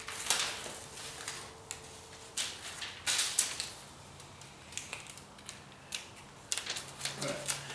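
Adhesive tape being pulled off and handled: irregular crackling and rustling with several sharp crackles, as a strip is torn free and peeled.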